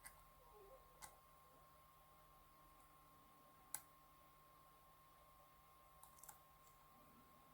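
Faint clicks of a lock pick working the pin stacks inside a DOM IX Saturn lock: a few single clicks, the sharpest about halfway through, and a quick run of clicks late on.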